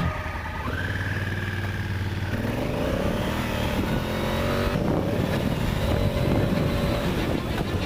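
Adventure motorcycle engine running under way, its pitch held steady for a moment and then rising and falling as the throttle is worked.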